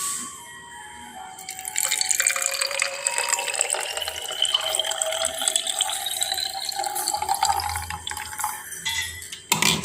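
Water poured into a spray bottle, its pitch rising steadily as the bottle fills, then stopping. A sharp knock near the end.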